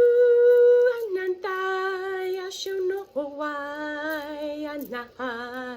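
A woman's voice singing long, wordless held tones, light-language toning. A high held note drops to a lower one about a second in, and after a short break a still lower note is held with a slight waver near the end.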